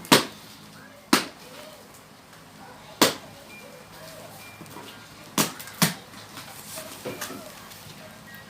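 Sharp knocks, about six at uneven spacing, two of them close together a little past halfway, from something being struck while a box is opened.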